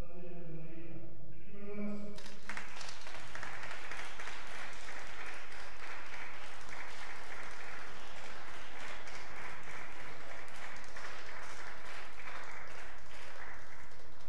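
A man speaking into a microphone over a PA, then a crowd clapping from about two seconds in, stopping just before the end.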